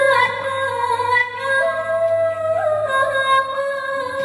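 Thai sepha chanting in likay style: one high voice holding long drawn-out notes that slowly bend up and down.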